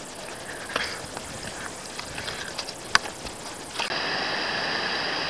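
Scattered light clicks and crunches, with one sharp click about three seconds in. Then, about four seconds in, a steady rush of running water from a small stream starts suddenly and holds.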